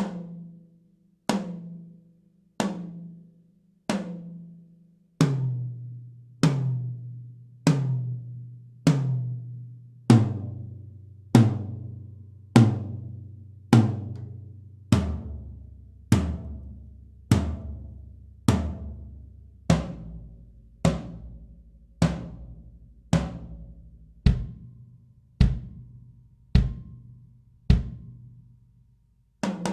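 Yamaha Maple Custom toms struck one at a time, about one hit every second and a quarter, each ringing out. The pitch steps down to the next lower drum every four strikes, and the last strikes are deeper and shorter. A fast snare roll starts at the very end.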